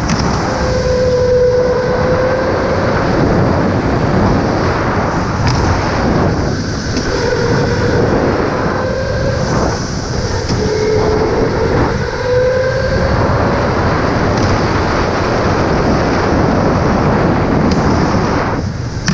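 Electric go-kart driven hard around an indoor track: a loud, steady rumble of motor, tyres and wind. Three times, a wavering squeal rises and falls for a second or two.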